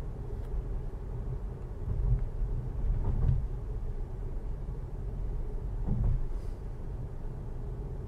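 Steady tyre and road noise of an electric Tesla Model S cruising at about 40 mph, a low rumble with no engine note, with a few soft low bumps about two, three and six seconds in.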